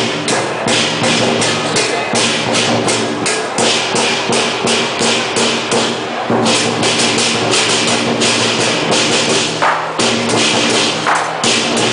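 Southern Chinese lion dance percussion: drum, cymbals and gong. Cymbal clashes come about three times a second over a steady ringing tone, breaking off briefly about six seconds in and again near ten seconds.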